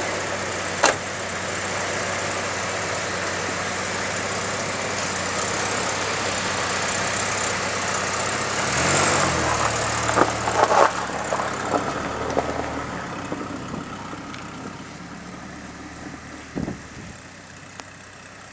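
Pickup truck engine running steadily, rising briefly in speed about nine seconds in and settling again. The sound then fades over the last few seconds, with a sharp click near the start and another near the end.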